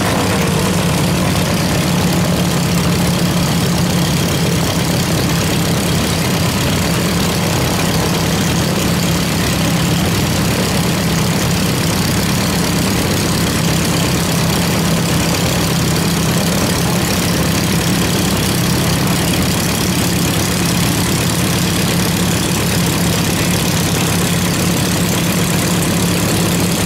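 Piston engines of light propeller aircraft idling steadily on the ground, a loud, even hum that does not rise or fall.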